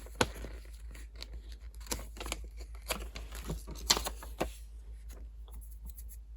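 Paper and plastic packaging being handled: scattered rustles, crinkles and small clicks.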